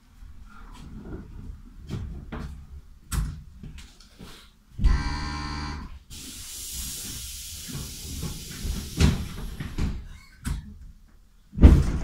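Inside a passenger train stopped at a platform: scattered knocks, then a buzzing warning tone of about a second, followed by a long hiss of compressed air, more knocks, and a loud thud near the end.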